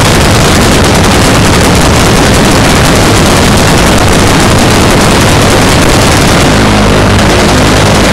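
Massed automatic machine-gun fire from many guns at once, a continuous dense roar of shots that overloads the recording. Near the end a steady low hum joins in under the fire.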